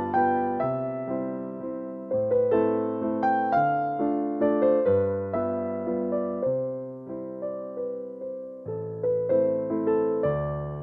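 Background piano music: a melody of struck, decaying notes over lower notes that change every second or so.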